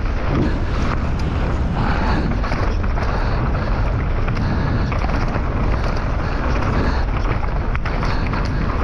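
Downhill mountain bike ridden fast without a chain: a steady rush of wind on the microphone over the rumble of tyres on dirt, with scattered rattles from the bike.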